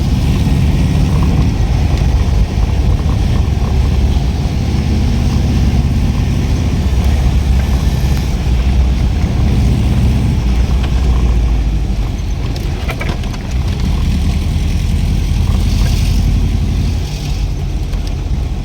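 Volkswagen Kombi van on the move: a steady, loud low engine and road rumble that holds much the same throughout.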